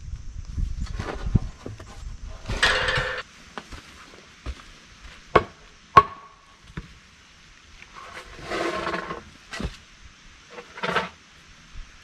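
Wooden concrete form boards being worked loose and pulled off a freshly cured slab: handling and rustling, a short scrape about three seconds in, two sharp hammer knocks around five and six seconds, and two more short scrapes near the end.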